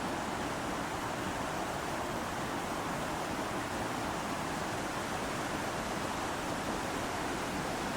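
Water of a mountain stream rushing over a small waterfall: a steady, unbroken rush.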